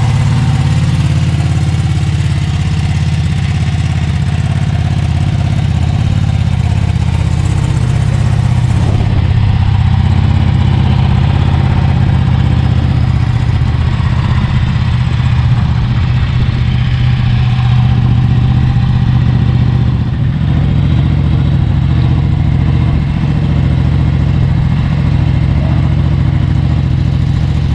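Ducati Panigale V2 sport bike's L-twin engine idling steadily, a deep, even running sound with no revving.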